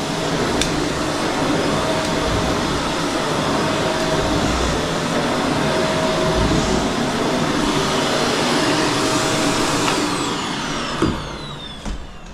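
Eureka Whirlwind bagless canister vacuum running steadily with a thin steady whine, then switched off about ten seconds in, its motor winding down with a falling whine.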